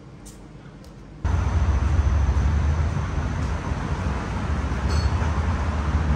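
A few faint ticks, then about a second in a sudden loud, steady low rumble with a hiss over it that runs on unchanged.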